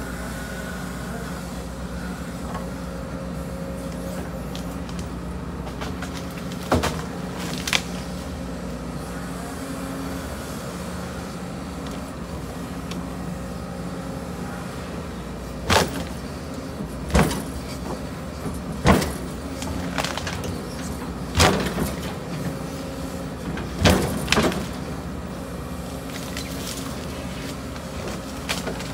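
Case CX210D excavator's diesel engine running steadily while it works. Sharp knocks stand out above it: two about seven seconds in, then a run of about six more in the second half.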